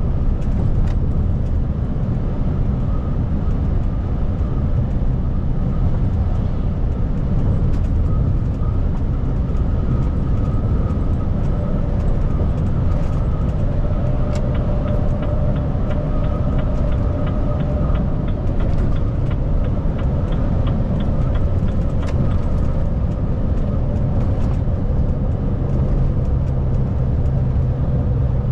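Renault T High 520 truck's 13-litre straight-six diesel running steadily with a deep, even drone. A fast regular ticking sounds for several seconds about halfway through.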